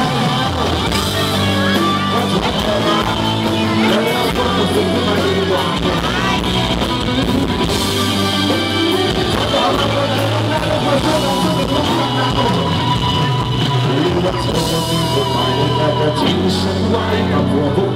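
Live rock band playing a song: a male singer over electric bass, guitar and drum kit, loud and continuous.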